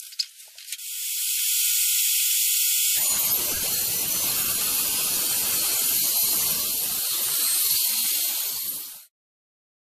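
Electric saw, just fitted with a new blade, running as a loud steady hiss. About three seconds in a rougher, fuller noise joins it, as of the blade cutting wood. The sound cuts off suddenly near the end.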